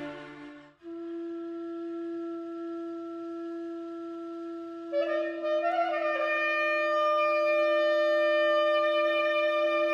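Background music: one low note held steadily like a drone, joined about five seconds in by a louder, higher sustained wind-instrument note.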